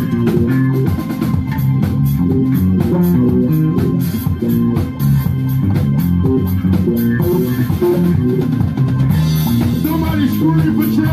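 Live electric bass playing a busy line of quick low notes over a drum kit beat, with a cymbal wash about nine seconds in.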